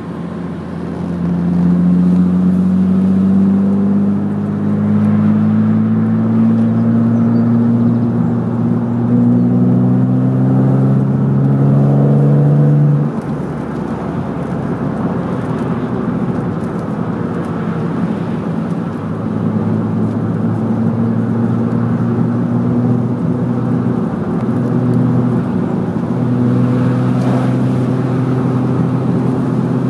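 BMW M3 engine heard from inside the car on the move: the engine note climbs slowly for about thirteen seconds, drops suddenly as the driver shifts or lifts off, then holds a steadier cruising note that rises and dips a little.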